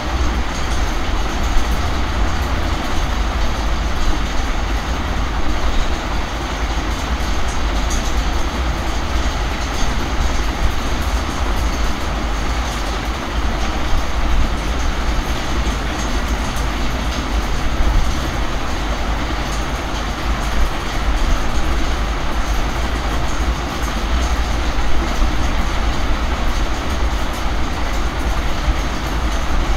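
Steady, even background noise with a strong low rumble, unchanging throughout.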